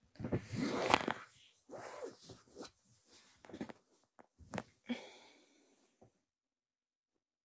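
Handling noise and breath close to a phone's microphone, in several short bursts with a few sharp clicks, stopping about five seconds in.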